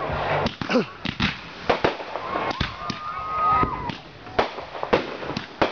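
Fireworks bursting in quick, irregular succession: a dozen or so sharp bangs and crackles. A steady high tone runs for about a second near the middle.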